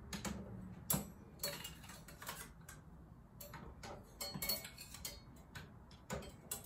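Brass serving utensils clinking against the hooks of a black metal wall rack as they are hung up: a string of irregular light metallic clicks and taps.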